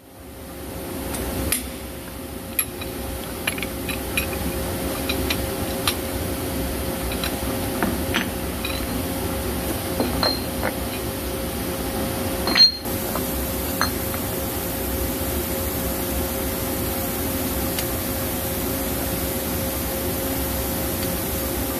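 Steady hum of the vertical lathe's machinery standing by, with light metal clicks and taps as a steel tool holder and hex key are handled against the tool post, one sharper clack a little past halfway; after that only the hum.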